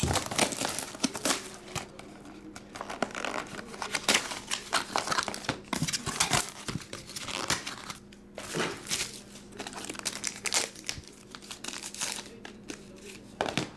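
Shiny plastic trading-card pack wrapper being torn open and crumpled, giving many irregular crinkling crackles.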